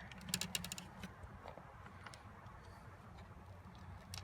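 Small, sharp plastic clicks as a knife pries a laptop screen bezel away from its glued edge: a quick run of clicks in the first second, then a few single ones.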